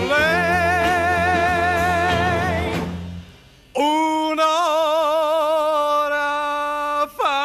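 Male singer with orchestra: he holds a long note with wide vibrato over the orchestra for about three seconds. After a brief pause, he holds a second long vibrato note alone with the orchestra silent, then starts a new note near the end.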